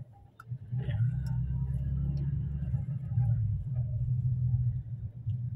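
Steady low rumble of a car driving, heard from inside the cabin, starting after a brief near-silent moment at the very beginning.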